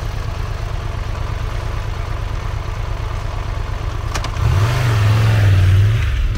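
2022 Triumph Tiger 1200 Rally Explorer's 1,160cc inline three-cylinder engine idling steadily. About four seconds in it revs up as the bike pulls away.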